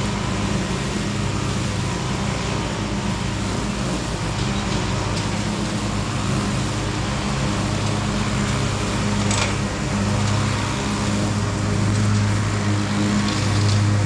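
Lawn mower engine running steadily at mowing speed, growing a little louder after about ten seconds.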